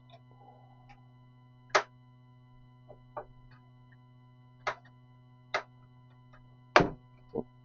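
Sharp plastic-and-metal clicks and knocks of parts and connectors being handled and pushed into place inside a PC case, six of them at irregular intervals, the loudest with a dull thud about seven seconds in. A steady low hum runs underneath.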